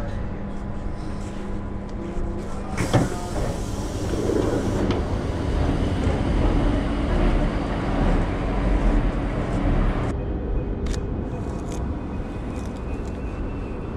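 Hamburg S-Bahn train: steady hum inside the carriage, then the door opening with a sharp clunk about three seconds in. After that comes the heavy rumble of the train at the platform as it pulls out, thinning out about ten seconds in.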